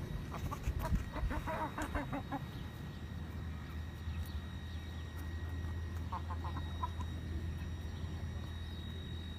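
Young white Shamo chickens calling in quick runs of short repeated notes, one in the first couple of seconds and another about six seconds in, over a steady low hum.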